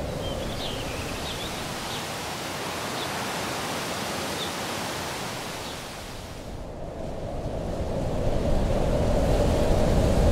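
Ambient soundtrack of a steady rushing noise with a few faint high chirps in the first half. Around two-thirds of the way through it dips, then swells back louder with a deeper rumble toward the end.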